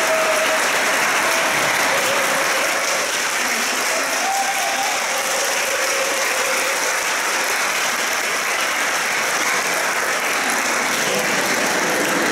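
Audience applauding: many hands clapping in a dense, steady patter, with a couple of brief cheers.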